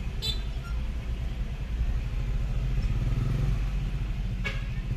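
Street traffic of motorcycles and cars, their engines making a steady low rumble. A short sharp sound comes just after the start and another near the end.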